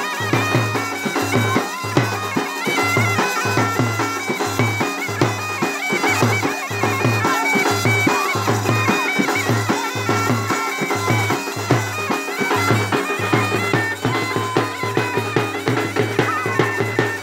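Bagpipes playing a folk melody, the notes stepping from one pitch to the next, over a steady low drum beat from a large stick-beaten drum and a hand drum.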